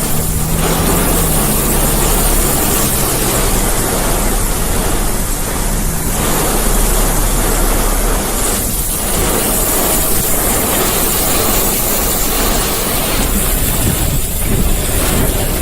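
Heavy, wind-driven rain on a moving car, heard as a steady loud rush mixed with tyre hiss on the wet road. A low engine hum fades out about a second in.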